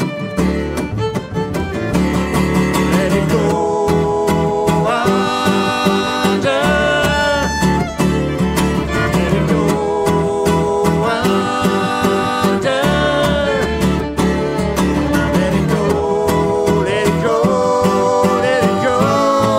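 Acoustic string trio playing an instrumental break in a bluegrass-blues tune. The fiddle carries the lead in long, sliding bowed notes, in phrases that come back about every six seconds, over strummed acoustic guitar and plucked upright bass.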